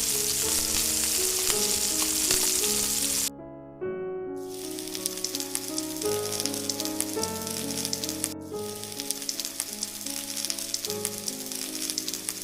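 Marinated chicken frying in hot oil in a pan, sizzling and crackling; the sizzle drops out for about a second a little over three seconds in, then resumes. Background music plays throughout.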